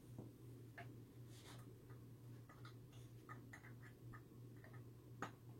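Faint, scattered clicks and light taps of a wire retaining clip being worked onto a beach wagon's wheel axle, the sharpest click about five seconds in, over a faint low hum.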